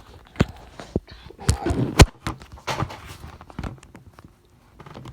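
Irregular knocks and thumps, the loudest about two seconds in.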